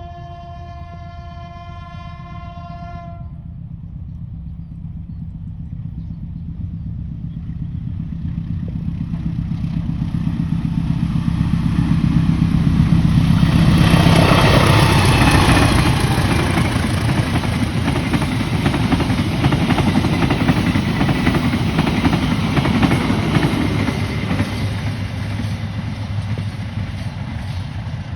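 Indonesian CC 201 diesel-electric locomotive sounding its horn, one steady note that stops about three seconds in. Then the engine and wheel noise grow louder as the locomotive approaches, peak about halfway as it passes close with a drop in engine pitch, and fade as it moves away.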